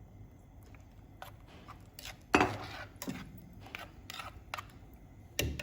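Kitchen clatter: utensils, dishes and containers clinking and knocking several times, with the loudest knock about halfway through and another near the end.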